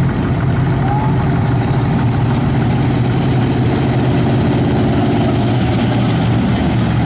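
Race cars' engines running, a loud steady low drone that holds even throughout.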